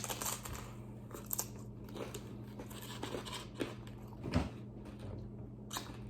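Crunchy bites and chewing into a taco, close to the microphone: a string of sharp crackling crunches, about one or two a second.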